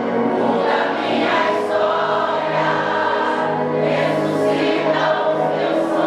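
A choir singing a gospel song with musical accompaniment, several voices holding notes together.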